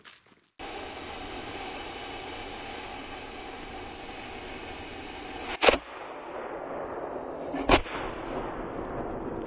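A 4-inch aerial firework shell fired from its mortar tube: the lift charge goes off with one loud sharp bang about halfway in, followed about two seconds later by a second, smaller bang, over a steady hiss.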